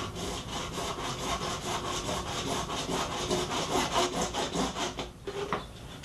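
Hacksaw cutting through a white plastic pipe, in quick, even back-and-forth strokes that stop about five seconds in, followed by a few looser scrapes.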